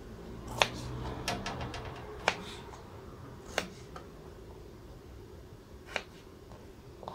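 Kitchen knife cutting broccoli stems on a plastic cutting board: irregular sharp clicks as the blade goes through the stems onto the board, with a quick run of small clicks about a second in.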